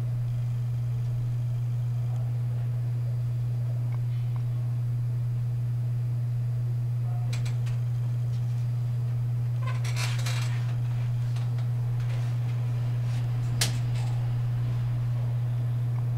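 A steady low hum throughout, with a few light clicks, a short clattering rattle of small hard objects about ten seconds in, and one sharp click near the end, as things are handled.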